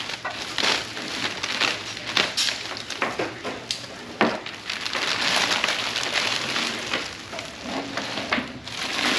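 Plastic packaging crinkling and crackling as it is cut open and pulled off a new jobsite radio, with scattered clicks and scrapes.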